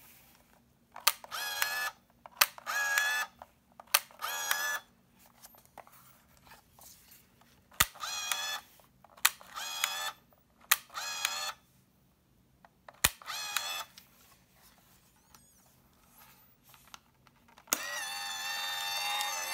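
Premier PC-664 point-and-shoot 35mm film camera being fired repeatedly: a sharp shutter click, usually followed by a short whir of the motor winding the film on, about seven times. Near the end a louder, steady sound with several held tones sets in.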